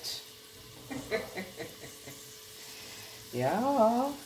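Sliced red onion frying in olive oil in a pan: a soft, steady sizzle, with a few light crackles about a second in.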